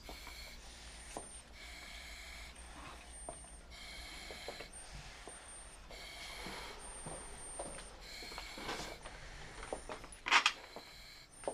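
An elderly bedridden patient breathing heavily through an oxygen mask, a noisy breath every one to two seconds. A brief louder sound about ten seconds in.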